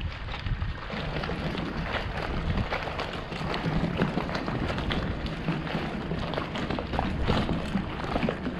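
Wind rumbling on the microphone during a bicycle ride, with the light rattle and clicking of the bike and street noise throughout.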